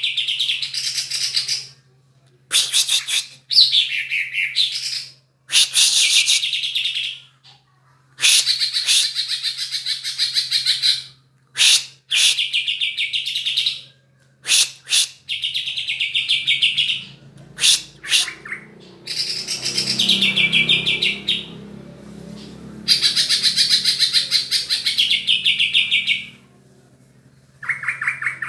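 A songbird singing in repeated high, fast chattering trills, each phrase lasting one to three seconds with short pauses between. It is a lure song meant to provoke lazy greater green leafbirds (cucak hijau) into singing. A faint low hum runs underneath.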